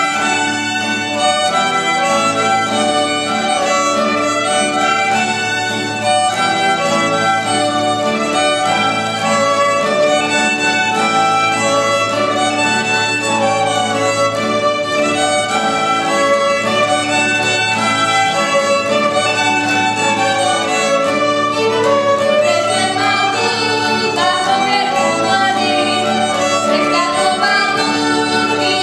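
A small folk ensemble of three violins, piano accordion and acoustic guitar playing a tune together at a steady level, the violins carrying the melody over the accordion and guitar.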